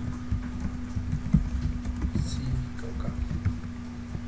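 Typing on a computer keyboard: irregular key clicks as a text entry is typed, over a steady low hum.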